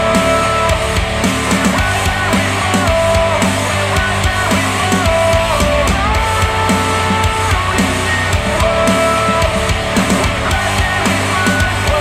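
Rock music with guitar and drum kit, played back through Monitor Audio Bronze 100 bookshelf speakers driven by a Cambridge Audio CXA81 integrated amplifier. A steady, loud band texture runs under held, sliding lead notes.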